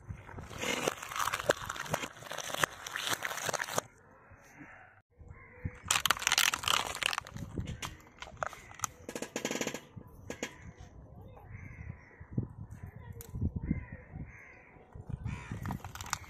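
Bursts of crackling and squelching as a tractor tyre rolls over and crushes eggs and water-gel beads on concrete. Between the bursts, crows caw repeatedly.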